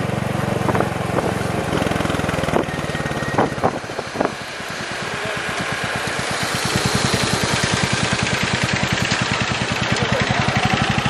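Motorcycle engine running slowly with an even, pulsing beat close by, growing louder about five seconds in and then holding steady. A few sharp clicks come in the first four seconds, over a low steady hum.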